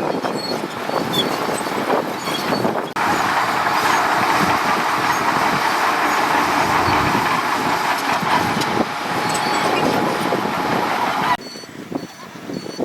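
Heavy earthmoving machinery at work, a bulldozer and dump trucks, making a steady rattling, clattering noise. It turns suddenly louder about three seconds in and drops back abruptly near the end, where faint reversing beeps repeat.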